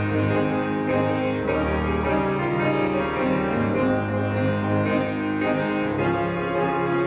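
Solo piano playing slow, held chords, the bass notes changing every second or two.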